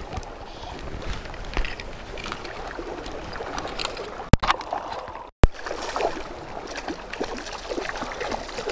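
Shallow river water rushing and splashing around a wading angler, with many small irregular splashes. A sharp click about four seconds in, and a moment later the sound cuts out briefly and returns with another click.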